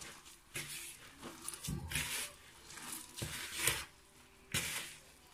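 Hands kneading a wet mixture of grated zucchini, carrot, egg and flour in a plastic bowl, making a string of irregular squishing strokes.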